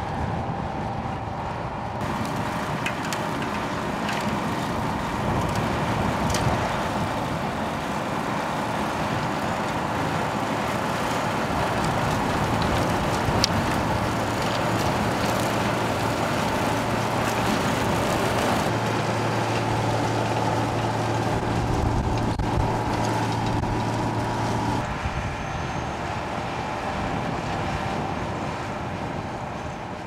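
Matrot M41 sugar beet harvester at work, its air-cooled six-cylinder Deutz engine and lifting machinery running, mixed with a John Deere tractor driving alongside. A steady low drone comes in around the middle.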